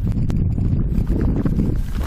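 Wind buffeting the microphone: a loud, steady low rumble with a few faint clicks through it.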